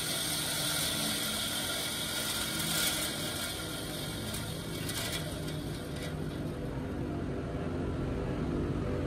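Band saw running with its blade in thick hardwood, a steady mechanical running sound with rasping sawing noise over it. The sawing noise fades about six seconds in, leaving the machine's steady running.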